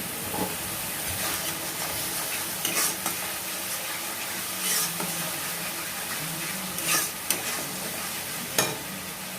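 Spice paste with turmeric sizzling as it fries in hot oil in a pan, while a spoon stirs it, scraping against the pan several times.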